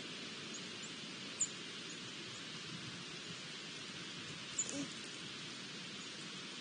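Steady outdoor hiss of open air among bare trees, with two short, high chirps, one about a second and a half in and another just under five seconds in.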